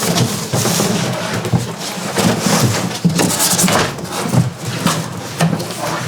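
Cardboard box and packaging rustling and scraping as a large, heavy PC case is worked out of its box, with irregular bumps and crinkles throughout.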